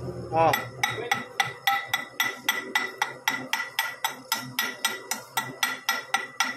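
Hand hammer striking the fresh weld bead where the yoke joins the steel propeller shaft tube: quick metallic taps about three or four a second, each ringing briefly.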